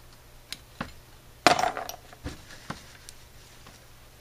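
Metal hand tools and parts of a Carter RBS one-barrel carburetor being handled and set down on a workbench: scattered light clicks and clinks, with one louder metallic clank about a second and a half in that rings briefly.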